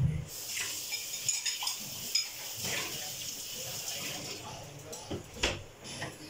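Aluminium pressure cooker on a gas burner letting off steam through its whistle: a loud hiss with the weight rattling and clinking on the vent, beginning just after a thump and dying away after about four seconds, then a few sharp clicks. It is the cooker reaching pressure and giving its whistle.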